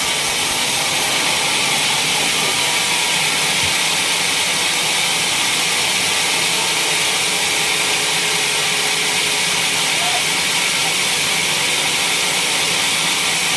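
Sawmill running with a steady, unbroken high hiss that holds an even level.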